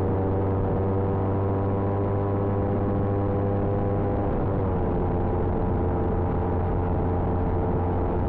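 Motorcycle engine running at steady cruising revs, its pitch dropping about four and a half seconds in as the revs fall, then holding steady again.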